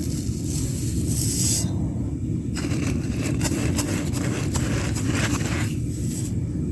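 Home foundry furnace burner running with a steady low rumble, while pieces of scrap bronze are loaded in, giving bursts of scraping and clinking metal, the longest through the middle.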